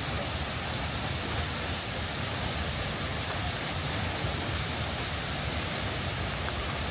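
Seljalandsfoss, a 60 m glacier-fed waterfall, making a steady, unbroken rush of falling water with a deep rumble underneath.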